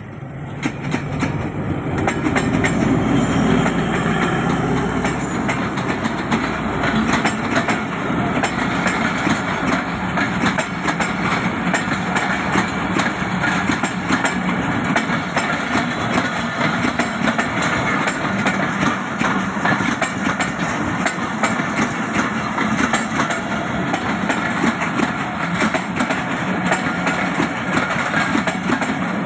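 Pakistan Railways diesel locomotive passing close by, its low engine rumble swelling over the first couple of seconds and strongest for the first several seconds. Then comes a steady, dense clatter of the passenger coaches' wheels over the rails as the train rolls past.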